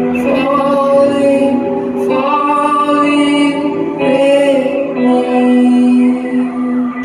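A woman singing live, slow phrases of long held notes over a sparse, quiet backing.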